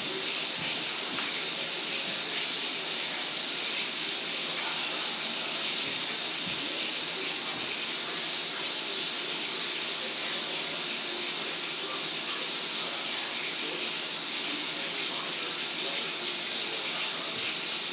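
Tap water running steadily.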